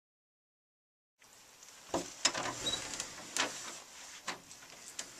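Digital silence for about the first second, then a handful of soft knocks of footsteps on a hard floor, roughly one a second, as a person walks away over a faint room hiss.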